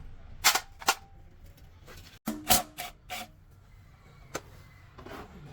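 Scattered sharp clicks and knocks of hand tool work: two about half a second in, a quick run of them around two and a half to three seconds, and a single click a little past four seconds.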